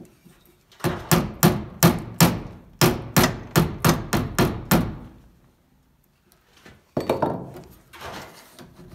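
Hand hammer striking sheet-steel body panel, a quick run of about fifteen ringing blows over some four seconds, to tap the fender and patch panel edge into position. A few duller knocks follow near the end.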